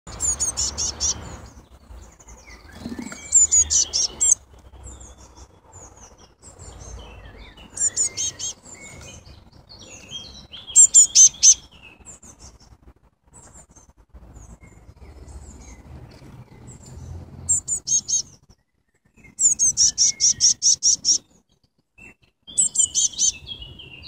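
Blue tits calling from around the nest box: short bursts of rapid, very high chirps, about five notes a second, repeated every few seconds.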